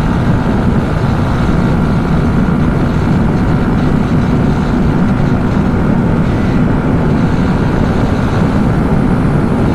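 Steady riding noise from a Yamaha R15M motorcycle on the move: a low, unbroken rush of wind over the microphone with the running bike underneath.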